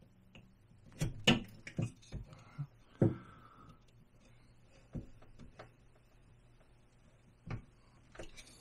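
Carving knife cutting basswood by hand: a series of short, sharp snicks as chips are sliced off, several in quick succession in the first few seconds, then a few more spaced out with pauses between, with a brief scrape of the blade along the wood just after the third second.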